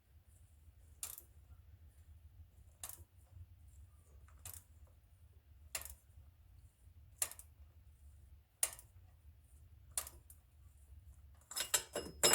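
Light, sharp clicks about every second and a half over a faint low hum, then a quick run of metallic clinks near the end.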